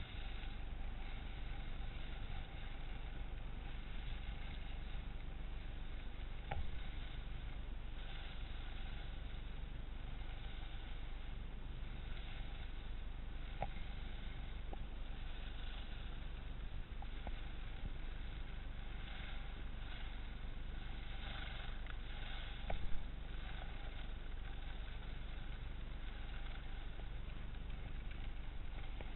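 Wind rushing over the microphone and skis sliding and scraping on groomed snow during a fast run, a steady rumbling rush. It is broken by a few brief knocks, the loudest about two-thirds of the way through.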